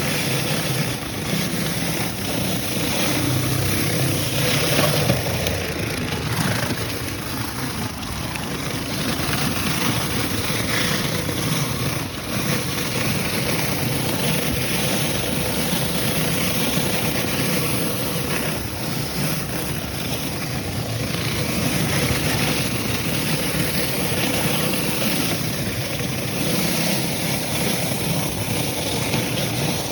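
Gas-engine pressure washer running steadily, its spray hissing as pre-treatment chemical is applied through an X-Jet.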